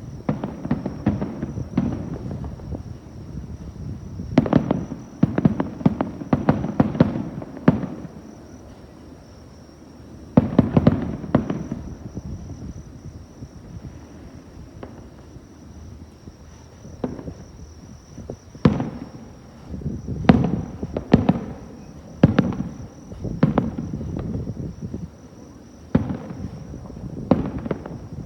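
Fireworks display: aerial shells bursting in irregular volleys of booms and sharp cracks with a low rumbling echo, quieter for a few seconds midway before a dense run of bursts near the end.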